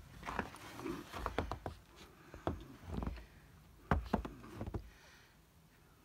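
Footsteps crunching in fresh snow: an uneven run of short crunches and low thumps that stops about five seconds in.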